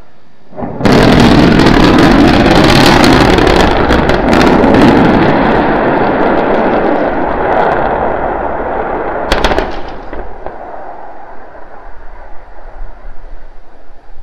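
Starship SN9 prototype crashing and exploding on the landing pad: a sudden, very loud rumbling roar about a second in that slowly dies away over several seconds, with a sharp crack about nine seconds in. The blast ends the failed landing flip, in which the vehicle came down still tilted.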